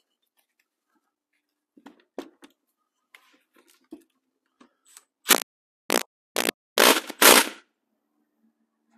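Cordless impact tool run in about five short bursts on the forcing screw of a case splitter, pressing on a Suzuki TS185 two-stroke's crankcase to split the halves. A few light knocks come before the bursts.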